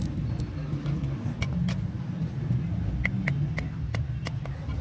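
About ten sharp wooden clicks and knocks as peeled sticks are bent into the weave of a basket and trimmed with a sickle, heard over a steady low rumble.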